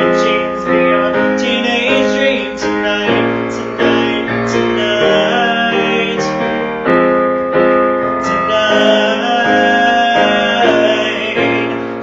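Piano music: chords struck in a steady pulse, with a held melody line above them.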